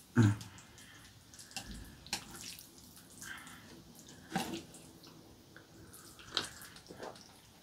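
Quiet eating sounds from spaghetti eaten with chopsticks: wet slurps and chewing, with scattered light clicks of chopsticks on the plate and a few short louder bursts.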